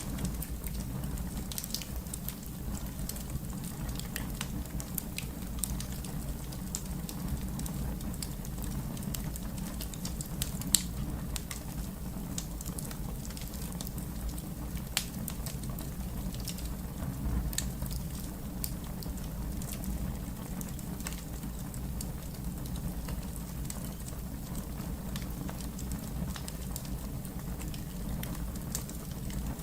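Fire crackling: scattered sharp pops over a steady low rumble, with one loud pop about eleven seconds in.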